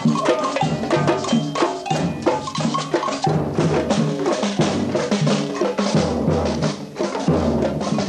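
Band music with drums: pitched instruments over bass drum and snare strikes.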